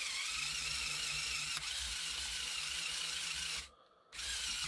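Two small electric M motors of a Mould King Tatra T813 building-block model whining as they drive its steering through a slip clutch and plastic gears. They run steadily for nearly four seconds, stop briefly, then start again near the end.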